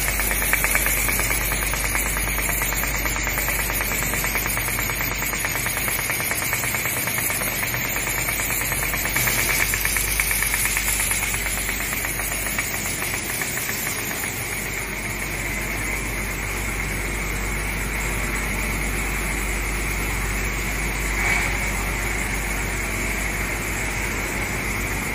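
1100-type folder gluer running steadily: its belts, rollers and carrier wheels make a continuous mechanical clatter over a low hum, with a fast, even rattle. A brief sharper sound comes near the end.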